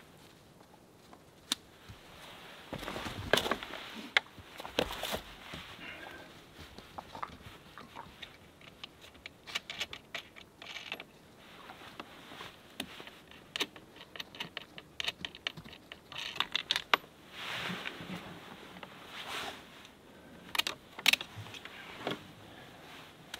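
Irregular small metallic clicks and clatter of battery cables and clip connectors being handled and hooked up at a battery, with short bursts of rustling.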